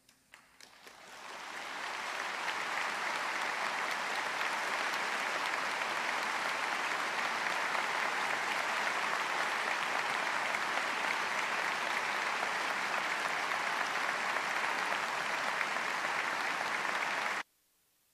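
Large audience applauding: a few first claps that swell within a couple of seconds into dense, sustained applause, which cuts off suddenly near the end.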